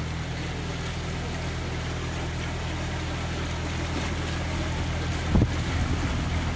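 Narrowboat's inboard diesel engine running at low revs with a steady low throb. A single knock about five seconds in.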